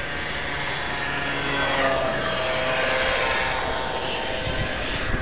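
Road traffic passing close by, a motor vehicle's engine sound swelling about two seconds in and then easing, over a steady rushing noise.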